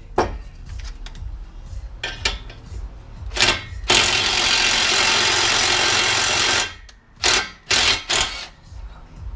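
Metal clicks and knocks from tools working on a differential's bearings. In the middle comes a loud, steady tool noise of under three seconds that starts and cuts off abruptly, followed by a few more sharp clicks.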